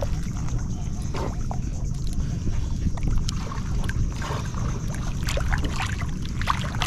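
Water sloshing around a person wading chest-deep while working a wooden stake down into the bottom, with scattered small splashes. A steady low rumble of wind on the microphone runs underneath.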